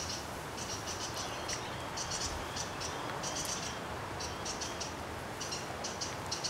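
Insects chirping in short repeated trills, one after another, over a steady background hiss.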